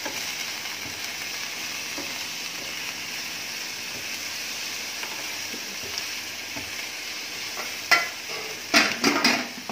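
Chicken, liver, garlic and onion sizzling steadily in olive oil in a frying pan as they are stirred, with a few sharp clacks of the stirring utensil against the pan near the end.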